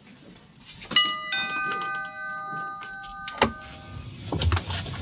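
Doorbell chime: two bell notes struck in quick succession about a second in, ringing on together for a couple of seconds and dying away, followed by a sharp click.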